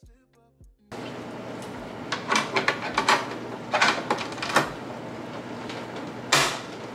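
Plastic clicks and knocks as hands handle a small pet hair dryer unit, plugging in its cord and pressing on its casing and front grille. Underneath is a steady hiss that starts abruptly about a second in.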